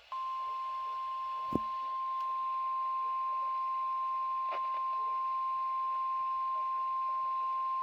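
NOAA Weather Radio 1050 Hz warning alarm tone: a single steady high beep held without a break, the signal that a warning message, here a severe thunderstorm warning, is about to follow. A faint click comes about one and a half seconds in.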